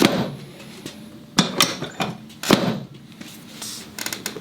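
A few sharp knocks and rustles as the patient is handled and shifted on a chiropractic treatment table, then a quick run of mechanical clicks near the end.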